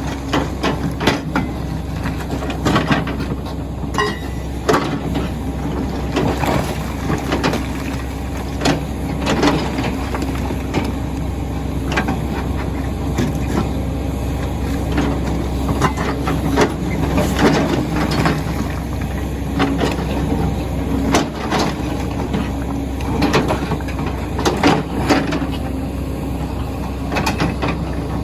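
Komatsu PC400LC excavator running with its hydraulic breaker hammering stone: a steady diesel engine hum under a rapid chattering of blows, with sharp cracks and knocks from rock breaking at irregular moments.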